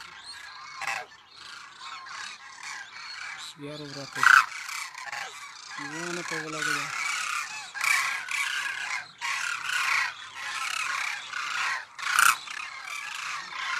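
A flock of demoiselle cranes calling in flight: a dense, continuous chorus of many overlapping calls, with a few louder single calls about four seconds in and near the end.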